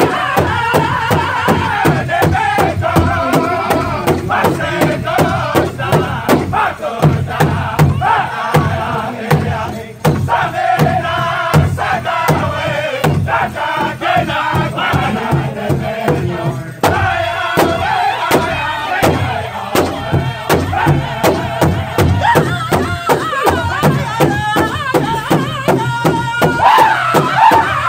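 Powwow drum group: a large shared hand drum struck in unison to a steady beat by several drummers, with men singing together in high-pitched voices over it.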